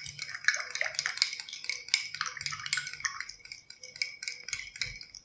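A spoon stirring powdered pine resin into olive oil in a glass, clinking rapidly and repeatedly against the glass, which rings with each strike.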